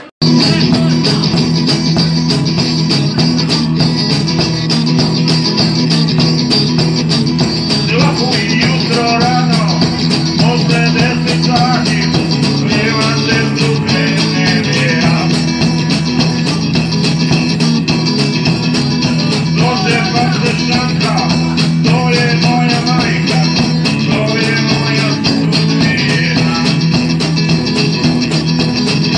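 Live rock-and-roll music from a one-man band: electric guitar played together with drums. It starts abruptly, and a melody line comes in over a steady low accompaniment from about eight seconds in.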